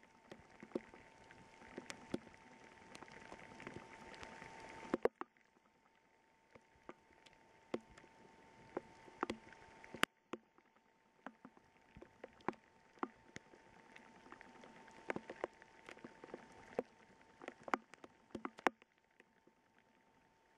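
Heavy rain falling in a thunderstorm downpour, with irregular sharp taps of single drops striking close to the microphone. The hiss of the rain drops off sharply about five seconds in, while the taps go on.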